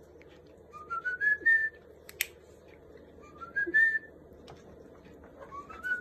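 African grey parrot whistling three short phrases, each climbing in little steps, with a single sharp click between the first and second.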